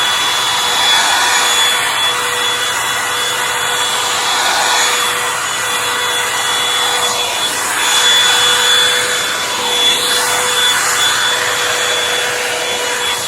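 Revlon One-Step hot-air brush running on its high setting: a steady motor whine under rushing air that swells and fades as the brush is worked through the hair.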